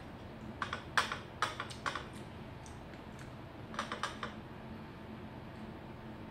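Two quick runs of small sharp clicks and taps: fingers working rice in a glass bowl while eating by hand.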